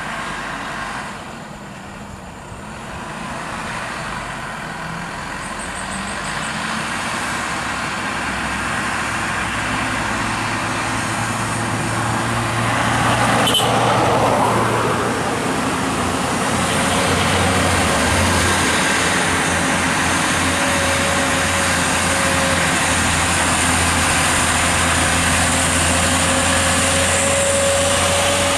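Heavy truck engine running, growing louder over the first half and then holding a steady low hum, with a single sharp click about halfway through.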